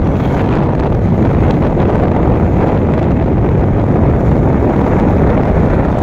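Wind buffeting the microphone: a steady, loud rumble of noise with no clear tone.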